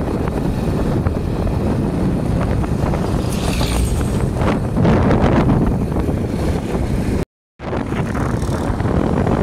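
Steady road and engine noise of a moving vehicle, with wind buffeting the microphone. The sound cuts out completely for a moment about seven seconds in.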